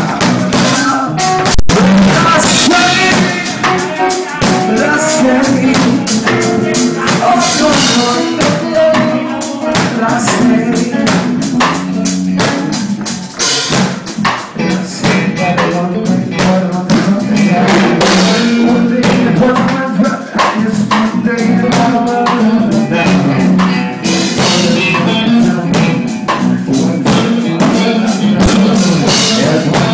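Live band music: a drum kit keeping a steady beat, with guitar and a singing voice.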